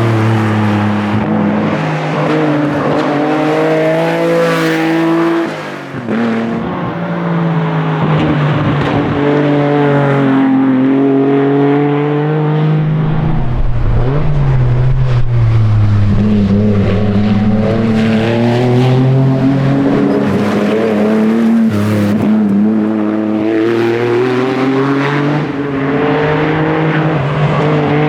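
Lancia Stratos rally car's engine at full race pace, revving up hard through the gears. Its pitch climbs and drops back at each gear change and each lift for a corner, with a brief back-off about six seconds in.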